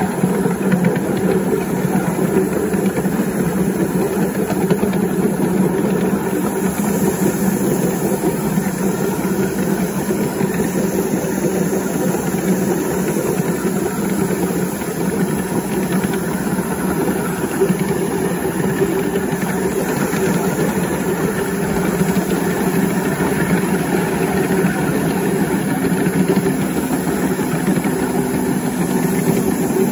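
A 5-inch gauge model LNER B1 live-steam locomotive running steadily under way, its exhaust and running gear making a loud, continuous, even sound.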